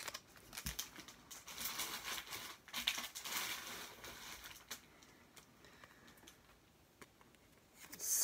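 Foil Pokémon booster-pack wrapper crinkling as it is handled and opened. The crinkling is strongest in the first few seconds, then thins to a few faint taps.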